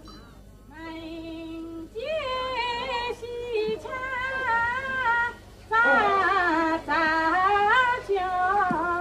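A woman singing unaccompanied: a long held note, then a slow melody with wide vibrato on the held notes. After a short break about five and a half seconds in, she sings on louder.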